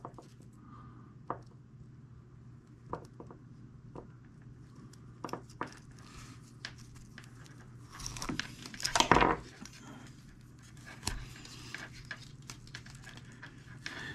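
Scattered light clicks and scrapes of stranded steel control cable and its loose wire strands being worked by hand in a splice. A louder scraping rustle comes about eight seconds in and lasts about a second and a half.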